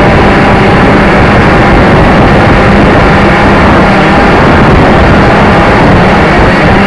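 Loud, steady drone of a model aircraft's motor and propeller, picked up by a camera mounted on the aircraft, with wind rushing over the microphone.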